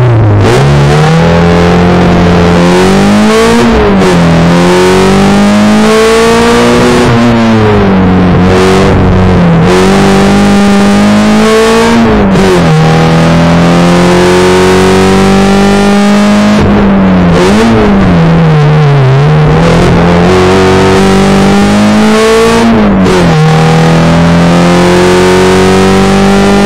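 1974 Mini Clubman's A-series four-cylinder engine driven hard on a sprint run, heard from inside the car. It pulls away from the start line, and its pitch climbs and then drops several times as it goes through the gears and lifts for corners.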